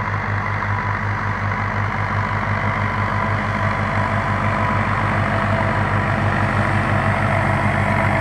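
Deutz-Fahr farm tractor's diesel engine running steadily under load while pulling a slurry tanker past.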